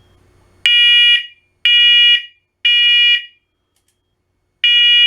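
Combination smoke and carbon monoxide alarm sounding its smoke test after its test button is pressed: loud, shrill piezo beeps in the three-beep temporal pattern. Three half-second beeps a second apart start about half a second in, then a pause, and the next set of three begins near the end.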